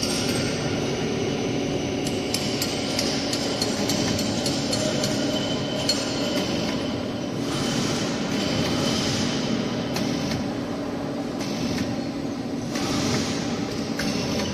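Hydraulic wheelset press at work mounting a wheel onto its axle: a steady hum from the hydraulic power unit, with scattered light metallic clicks and ticks. Two stretches of hiss come in, one near the middle and one near the end.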